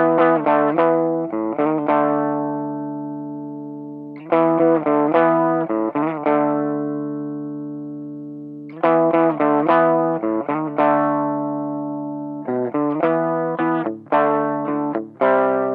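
Electric guitar played through a Line 6 Pocket Pod amp modeler: short phrases of picked notes, each ending on a chord left to ring and fade, three times over, then a run of shorter, choppier chords.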